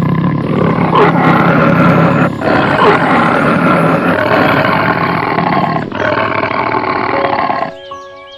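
A large animal roaring loudly and continuously, with two brief dips, stopping abruptly shortly before the end.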